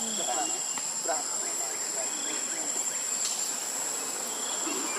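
Insects shrilling in a steady, unbroken chorus, with one constant high-pitched tone.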